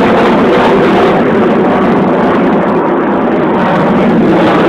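Fighter jet flying overhead: a loud, steady rush of jet engine noise that swells a little near the end.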